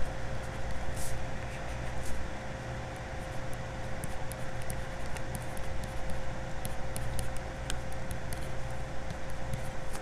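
Steady low electrical-sounding hum with a faint held tone above it, the recording's background noise, broken by scattered faint ticks.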